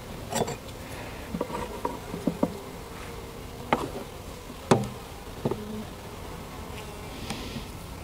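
Honey bees buzzing steadily around an open five-frame nuc hive. Several sharp wooden clicks and knocks, the loudest about four to five seconds in, come from the hive tool and frames being handled.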